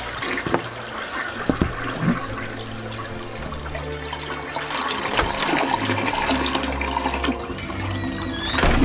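Water rushing and gurgling steadily, a flushing sound, with low steady tones underneath.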